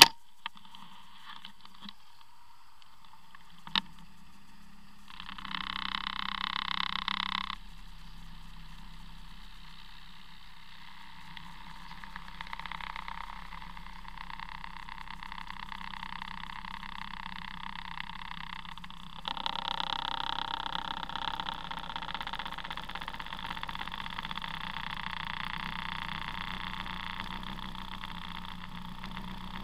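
Arctic Cat ZR 6000 El Tigre snowmobile's 600 cc two-stroke twin idling with a steady low hum. There is a sharp knock at the start and another about four seconds in. A louder, higher, rougher sound joins for about two seconds around six seconds and again from about nineteen seconds on.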